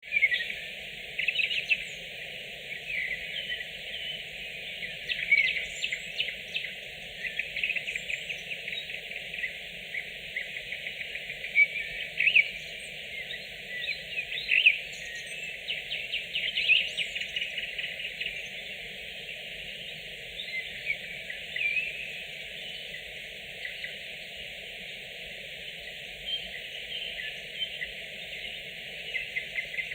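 Nightingales singing: fast trills, clicking runs and whistled phrases, one after another, with louder phrases every few seconds, over a faint steady background hiss.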